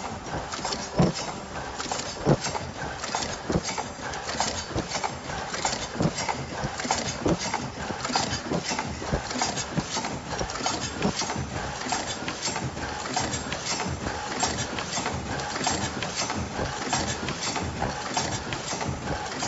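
Automatic disposable face mask making machine running: a dense clatter of rapid clicks, with a heavier knock about every second and a quarter through the first several seconds.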